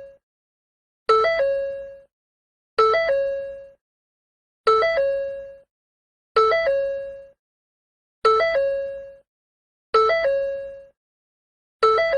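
Ford door chime repeating about every 1.8 seconds, seven times. Each chime is a quick two-note rise that settles into a held tone, fading within a second.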